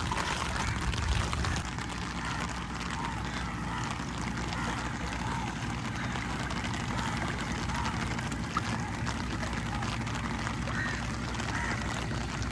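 Boat engine running steadily, under a wash of wind and water noise.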